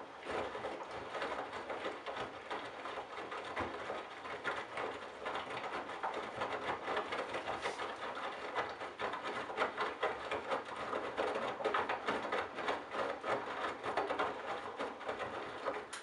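Candy GrandO Simply-Fi front-loading washing machine tumbling a wet load during its baby wash cycle: the drum turns in one long stretch, laundry flopping and water sloshing, then stops abruptly.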